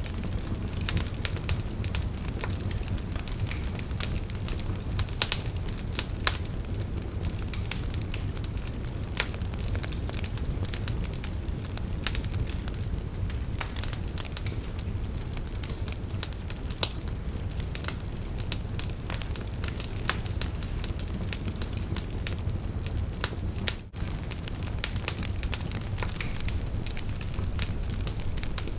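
Wood bonfire burning: a steady low rush with frequent sharp crackles and pops of the burning wood. Once, about five seconds before the end, the sound briefly drops out.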